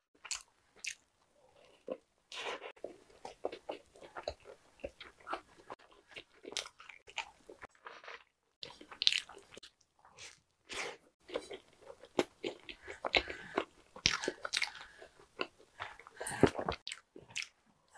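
Close-miked eating: biting and chewing a soft, milk-dipped ham and cheese sandwich with soaked puffed-wheat cereal, with many irregular short mouth clicks, busiest in the second half.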